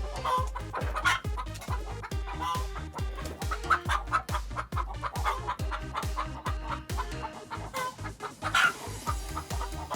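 Chickens clucking in short calls, with a louder call about eight and a half seconds in, over background music with a steady beat.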